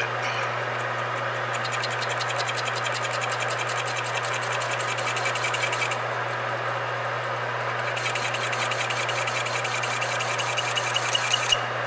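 Metal lathe running with a steady motor hum while the tool cuts a cast flywheel, the cut giving a rapid, even ticking. The ticking stops about six seconds in and starts again about two seconds later, and a sharp click sounds near the end.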